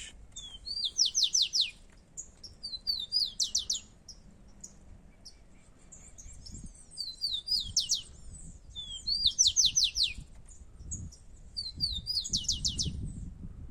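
Rufous-collared sparrows (tico-tico) singing: five songs, each a few short notes followed by a fast run of downward-sliding notes.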